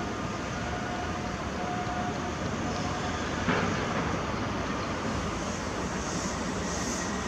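Odakyu electric train running through the station: a steady rumble with a single knock about halfway through. Near the end a high hiss of wheels on rail starts to build as the next train approaches.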